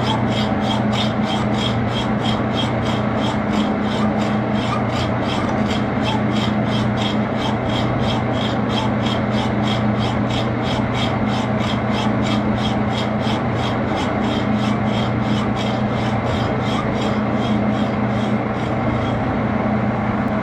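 A lathe running with a steady hum while a hand-held cutting tool or file scrapes against the spinning pre-hard steel handle. The scrape pulses evenly, about three times a second.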